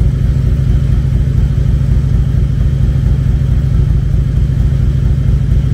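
Harley-Davidson Electra Glide Classic's air-cooled V-twin engine idling steadily with an even low pulsing. It is freshly reassembled and not yet warmed up, so the carburettor idle is still to be set.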